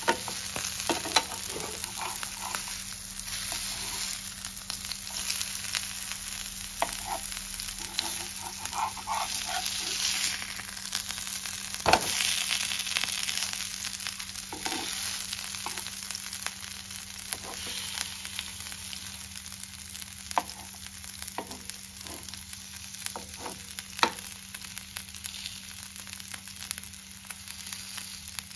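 Semolina-coated croaker fish sizzling in coconut oil on a flat tawa, with scattered clicks and scrapes of a metal spatula as the pieces are turned over. One sharp knock about twelve seconds in is the loudest.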